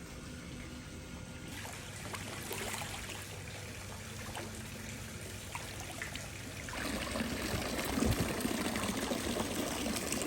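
Water trickling and pouring steadily at a pool, growing louder about seven seconds in.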